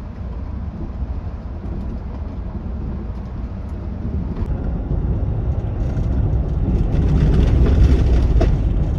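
Steady low rumble of a Volvo B11R coach's diesel engine and tyres on the road, heard from inside the cabin while it drives; it grows louder for a couple of seconds in the second half.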